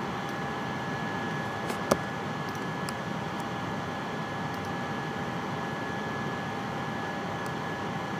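Steady background hiss with two faint steady whining tones, broken by one sharp click about two seconds in and a few fainter clicks after it, as the mouse is clicked while rotating an object in the software.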